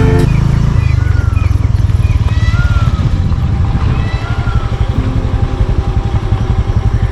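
A motorcycle engine running with a steady, fast low pulsing. A few short high calls come over it in the first few seconds.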